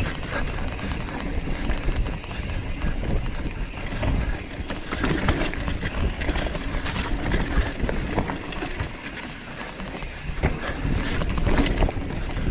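Hardtail mountain bike riding fast down a rocky dirt trail: a steady rumble of tyres and wind on the microphone, with frequent clattering knocks and rattles as the bike hits rocks.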